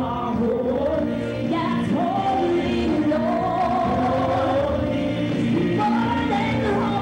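A choir singing a gospel worship chorus with musical backing, the voices holding and sliding between long notes.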